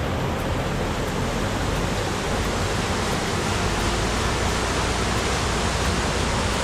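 Steady rush of a small waterfall, creek water pouring down a rocky cascade.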